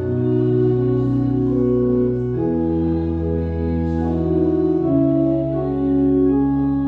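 Organ playing slow, sustained chords that change about every two to three seconds, with a short break at the very end as a phrase closes.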